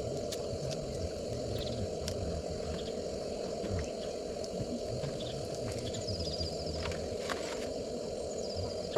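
Water heating to the boil for coffee: a steady low rushing with a pulsing rumble underneath and a few faint clicks.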